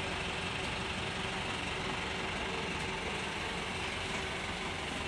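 A bus engine idling steadily.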